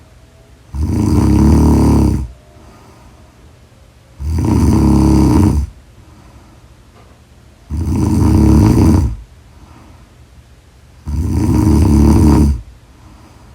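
Loud snoring: four long snores evenly spaced about three and a half seconds apart, each lasting about a second and a half, with quiet pauses between.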